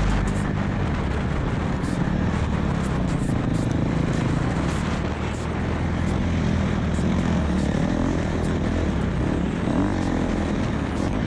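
Dirt bike engine running under load, its pitch rising and falling as the rider works the throttle.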